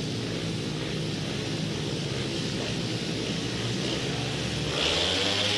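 Four 500cc single-cylinder speedway motorcycles revving together at the starting tapes. About five seconds in the engines open up at the start of the race and the sound gets louder and higher.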